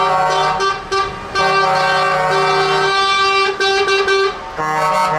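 Semi-truck air horns honking in long held blasts, several pitches sounding together as a chord, with short breaks about a second in and again near the end.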